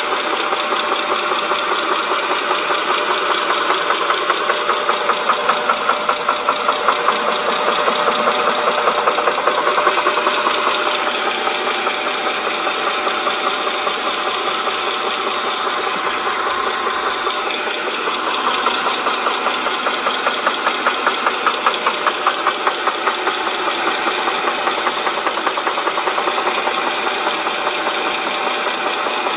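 2007 Dodge Charger's 2.7-litre V6 running steadily with a fast, continuous knocking rattle from the timing chain, which the owner puts down to a broken timing chain guide or tensioner.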